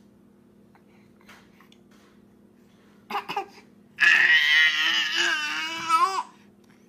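Baby crying in protest at having its pacifier taken: a short whimper about three seconds in, then a loud wavering wail of about two seconds starting about four seconds in.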